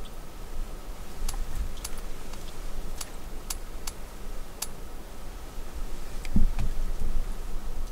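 Scattered small, sharp clicks, most of them in the first five seconds, then one dull low thump about six seconds in, over a steady low rumble.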